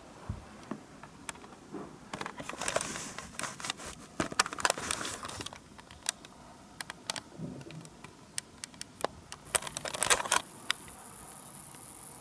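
HO-gauge model train, an EF81 electric locomotive and a SuHaFu 42 coach, rolling past on sectional track: a stream of sharp clicks as the wheels cross the rail joints, thickening into a dense rattle from about two to five seconds in and again about ten seconds in.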